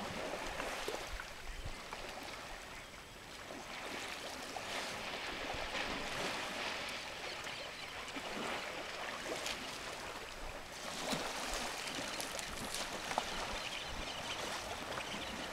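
African elephants playing in a pond, sloshing and splashing the water, a steady wash of water noise with small splashes now and then.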